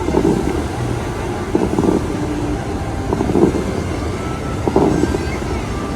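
Busy city street ambience: a steady low rumble of traffic with indistinct voices of people nearby, and wind on the microphone.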